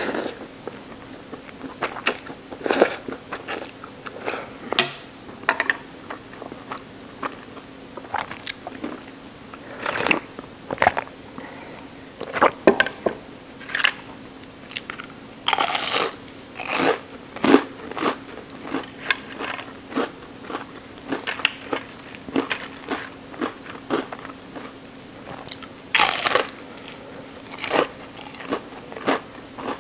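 Close-miked eating: ramen noodles slurped, then wet chewing with irregular crunchy bites. Two longer, louder bursts stand out, one about halfway and one near the end. A faint steady hum runs underneath.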